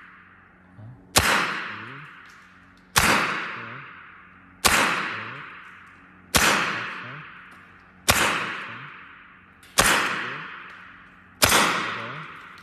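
Evanix semi-automatic PCP air rifle in .25 calibre firing seven shots at an even pace, about one every second and three quarters, each a sharp crack followed by a long echo dying away in the room. The rifle is part-way through its fill, at about 140 bar of air.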